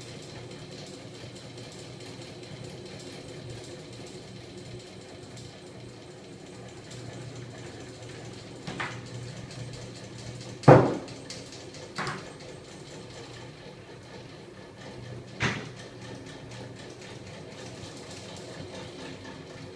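Homemade magnet-engine rig with a small electric motor driving its flywheels, running with a steady mechanical hum. Four short knocks come from the small battery being handled and set down on the table, the loudest about halfway through.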